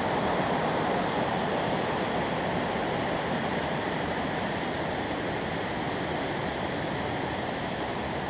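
Steady rush of a small waterfall and stream cascading over mossy rocks.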